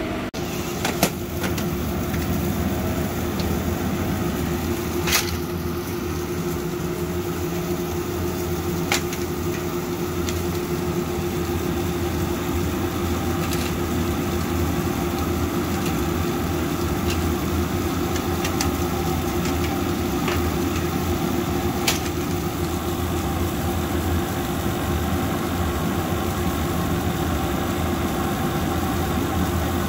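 Steady hum of a laser cutter's fume-exhaust blower running, with a few light clacks as cut MDF parts are lifted off the honeycomb cutting bed.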